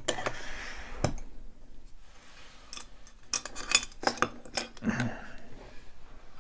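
Small metal clicks and clinks from handling a just-opened padlock and its picking tools: a few separate clicks, then a quicker run of them between about three and five seconds in.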